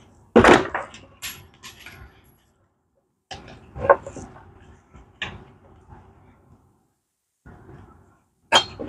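Metal clanks and knocks from a Moto Guzzi gearbox and tools being handled on a workbench: a few separate hits, the loudest just after the start, another about four seconds in and one near the end.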